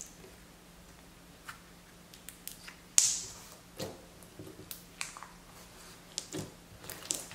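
Clear slime with melamine-foam sponge cubes kneaded in being pressed and squeezed by fingers, giving scattered small crackles and pops as the sponge cubes squish inside the slime, with one louder sharp snap about three seconds in.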